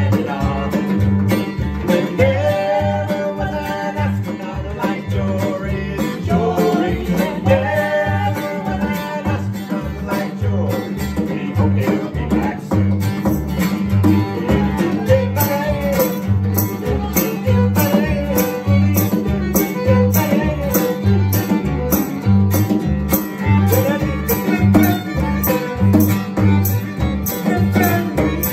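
Live acoustic folk band playing: strummed acoustic guitar, fiddle, upright bass and drum keeping a steady beat. Voices sing together in the first several seconds, and the instruments carry on after.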